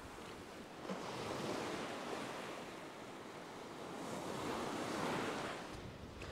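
Ocean surf breaking and washing up a sandy beach, swelling twice: about a second in and again toward the end.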